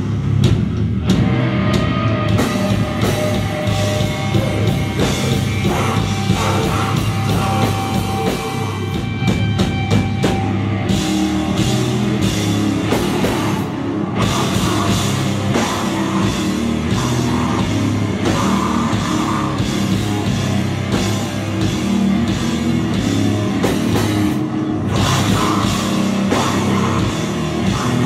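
Live heavy metal band playing loud: distorted electric guitars over a pounding drum kit.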